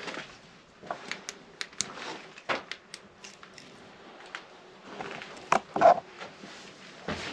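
Footsteps on loose stone rubble inside a narrow stone passage: irregular crunches and sharp clicks of stones knocking together, with a louder scuff about six seconds in.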